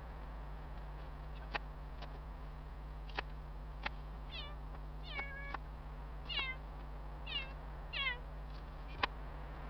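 A cat meowing several times, short calls falling in pitch, starting about four seconds in. A few sharp clicks come before and near the end.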